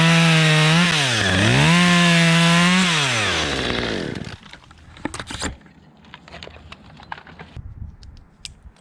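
Two-stroke chainsaw running at high revs, dipping in pitch and climbing back about a second in, then the revs fall away and it goes quiet by about four seconds in. Light scattered knocks and crackles follow.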